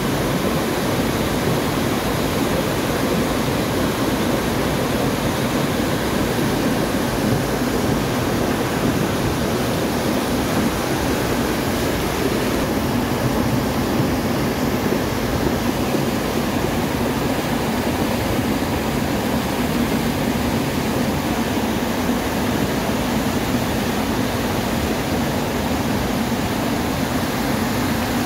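Muddy floodwater rushing down a concrete street channel, a steady, unbroken roar of fast-moving water with water spilling over the channel walls.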